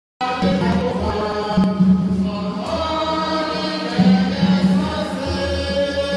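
Church choir singing a hymn in sustained, held notes over a steady low accompaniment; the sound cuts back in abruptly just after the start, following a brief dropout.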